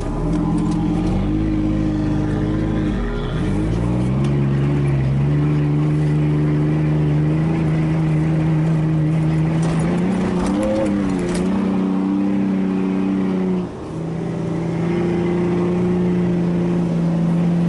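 Nissan Frontier pickup's engine heard from inside the cab while driving off-road. It revs up and changes gear several times, its pitch climbing and then dropping at each shift, with a few knocks and rattles over bumps about ten seconds in.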